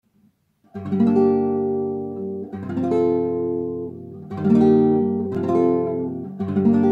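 Acoustic guitar playing a song's introduction: five chords strummed one after another, each left to ring out and fade before the next, starting just under a second in.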